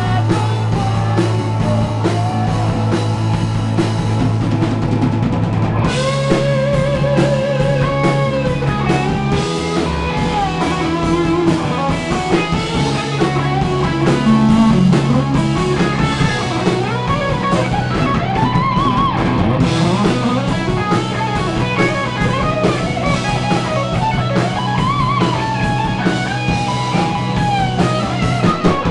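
Live rock band playing an instrumental passage: electric guitar lead with wavering, bent notes over bass guitar and a drum kit, the arrangement shifting about six seconds in.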